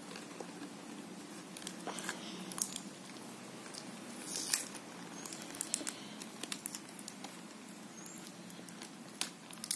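Hands handling cardboard and small parts: scattered soft taps, scratches and rustles over a faint low steady hum, with a slightly louder cluster of clicks about four and a half seconds in and again near the end.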